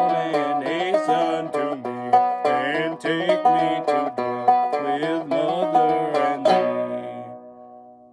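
Gold Tone AC-100 open-back banjo with Nylgut strings, tuned low and picked in a closing instrumental passage. A final strum about six and a half seconds in rings out and fades away.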